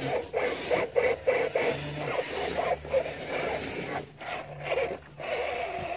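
Axial SCX10 RC crawler's electric motor and geared drivetrain whining, the pitch rising and falling as the throttle is worked, with scraping as the tyres grip and slip on crumbly sandstone.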